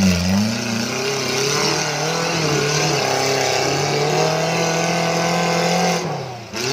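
Off-road 4x4 buggy's engine revving hard and held at high revs as the vehicle struggles on a steep mud climb it cannot make. The revs drop about six seconds in, then pick up again.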